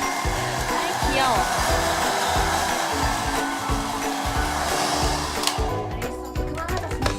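Hair dryer blowing steadily, switched off about five and a half seconds in, over background music that keeps playing.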